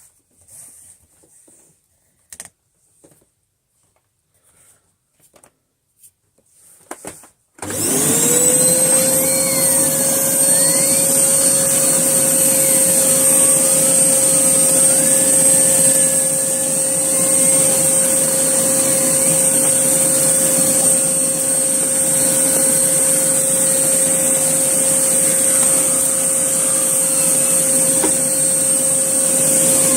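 Hoover Blaze canister vacuum cleaner switched on about seven and a half seconds in, its motor spinning up within half a second to a steady high whine and running on. Before it starts there are only a few light clicks and handling noises.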